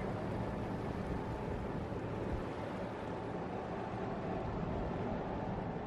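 Steady rumbling of a boat under way beneath a bridge, mixed with wind noise.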